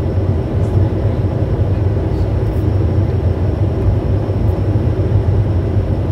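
Steady low rumble of air and engine noise inside the flight deck of a Bombardier Challenger 350 business jet on approach.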